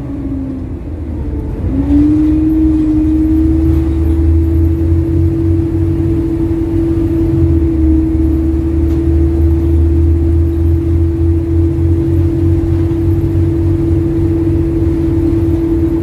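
Double-decker bus engine and drivetrain heard on board while driving: a steady whine over a low engine rumble, sagging at the start and climbing back about two seconds in, then holding. The engine is running with a blown exhaust manifold, which the owner says makes a ticking noise.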